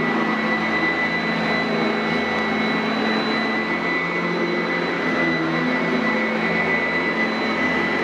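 Sanitaire SC899F commercial upright vacuum running steadily on carpet: a continuous rush of air with a steady high motor whine.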